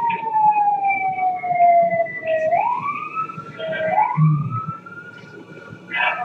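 Police car siren wailing in slow sweeps: a long fall in pitch over about two and a half seconds, then a rise, another dip near four seconds and a rise again.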